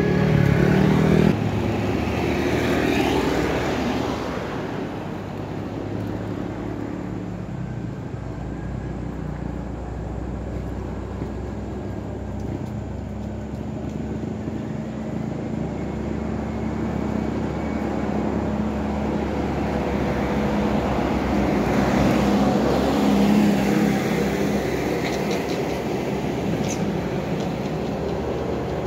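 Road traffic: a motorcycle pulling away close by at the start, then the steady hum of vehicles on the road, which swells again as another vehicle passes about twenty seconds in.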